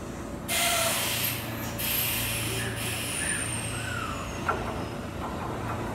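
Kintetsu electric train standing at the platform gives off a sudden loud hiss of compressed air about half a second in, lasting about two seconds, followed by a faint falling whistle and a single sharp click.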